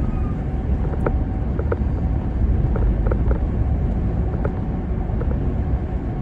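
Steady road noise from a car being driven at highway speed: a low rumble of engine and tyres, with a few light clicks and rattles scattered through it.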